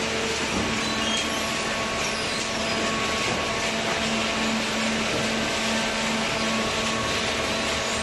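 Hydraulic OCC baler and its cardboard feed conveyor running: a steady mechanical drone with a low hum, cardboard being fed into the hopper.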